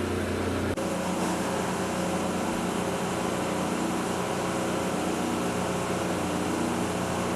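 Apple cider mill machinery running with a steady mechanical hum made of several tones. The hum shifts once, about a second in, then stays even.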